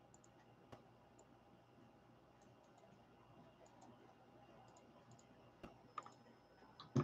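Near silence broken by a few faint, sharp clicks from working a computer, one early and several close together near the end.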